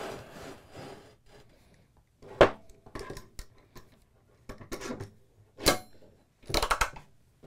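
Metal hold-down clamp being set into a perforated workbench top and locked down on a heavy steel plate: a series of separate knocks, clicks and scrapes, the sharpest about two and a half seconds in, with a quick cluster of them near the end.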